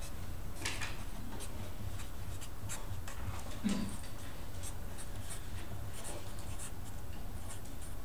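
Felt-tip Sharpie marker writing on paper: a run of short, light scratchy strokes as letters are drawn, over a low steady hum.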